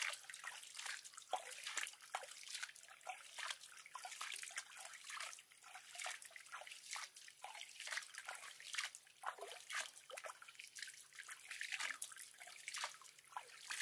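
Pool water splashing and dripping as a macaque scoops and slaps at it with its hand: many small, irregular splashes and drips.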